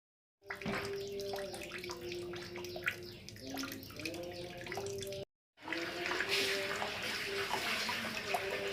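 Running water splashing steadily, in two stretches broken by a short cut about five seconds in.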